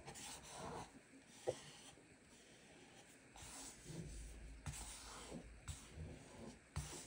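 Faint rustling and light taps of a cut-out double-sided adhesive sheet decal being handled and laid onto a wooden panel, with one sharper tick about a second and a half in.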